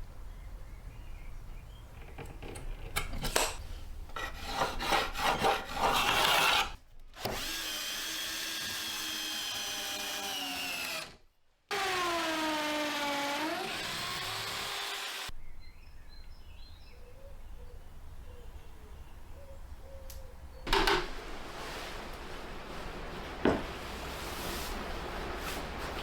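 Power drill working into wood: short bursts at first, then a steady motor whine whose pitch sags and recovers as the bit bites. A couple of sharp knocks come later.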